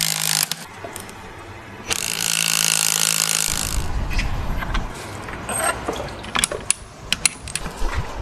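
A power tool runs twice, each time steady for about a second or more, driving a bearing puller to draw the bearing off the end of a gearbox output shaft; sharp metal clicks and clinks follow in the second half as the parts are handled.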